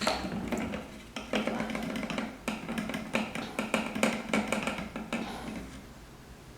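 Irregular clicks and knocks of plastic and metal parts being handled and pulled loose on a lawnmower engine. They die away about five seconds in.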